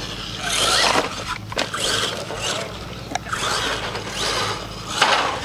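Radio-controlled monster truck running hard on a dirt track, its motor and tyres swelling in repeated surges, with two short knocks.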